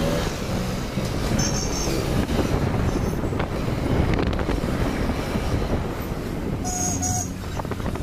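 Motorcycle engine running steadily while riding through town traffic, with wind and road noise. Two short high beeps sound, one about a second and a half in and a stronger one near the end.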